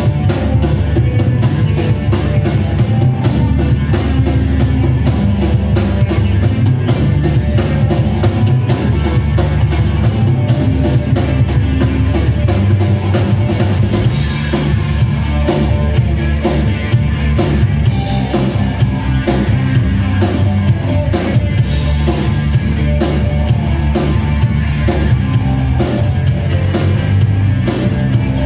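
Live rock band playing: drum kit with a steady, even beat, electric guitar and bass guitar.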